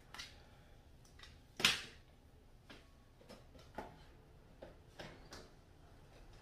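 Scattered light clicks and knocks of small objects being handled and moved about, with one sharper clack a little under two seconds in.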